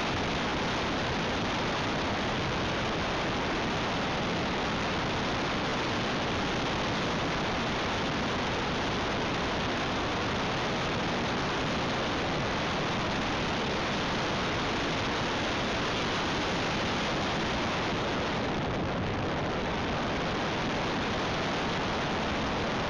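Steady, even rushing noise of airflow and propwash buffeting the microphone of a camcorder carried aloft by an RC aircraft in flight, with no distinct motor tone standing out.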